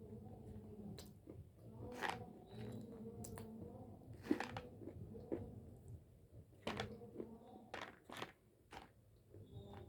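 Close-up crunching and chewing of small chunks of Hyderabadi white khadi, an edible white clay, with several sharp crunches at irregular intervals between softer chewing.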